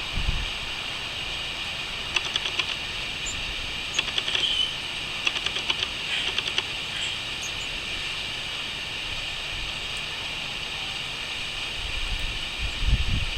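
Crickets chirping in a steady high-pitched chorus, with short bursts of rapid bird chirping a few seconds in. A low rumble sounds briefly at the start and again near the end.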